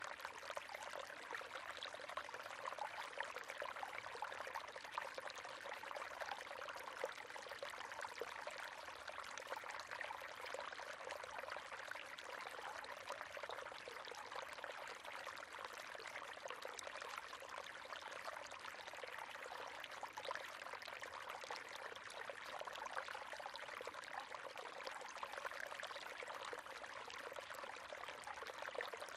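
River water running and splashing over stones, a steady, even rush with fine babbling detail.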